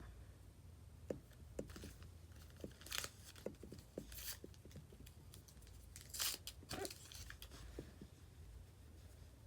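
Crinkling, light tearing and small ticks of nail polish strips being handled and peeled, with a louder sharp crinkle about six seconds in.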